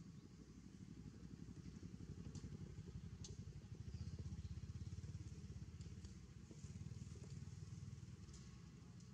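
Faint low rumble of a passing motor vehicle, swelling about four seconds in and then fading, with a few faint ticks.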